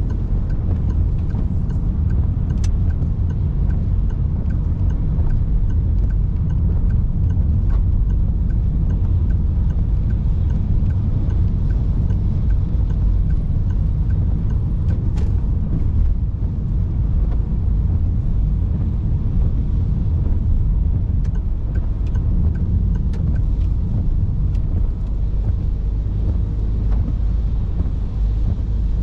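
Steady low rumble of a car's engine and tyres on the road, heard from inside the cabin while driving, with a couple of faint ticks.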